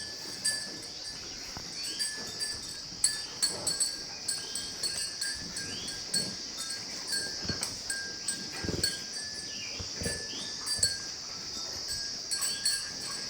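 Dairy livestock in their shed after feeding, with short scattered animal calls and knocks over a steady high hiss.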